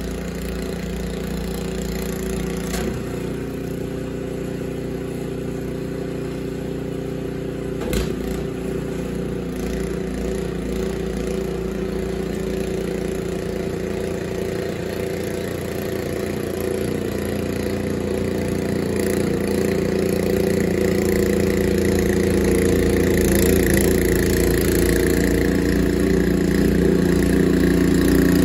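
Two-stage gas snowblower engine running steadily while it clears and throws snow, growing louder as the machine comes closer. A single sharp knock about eight seconds in.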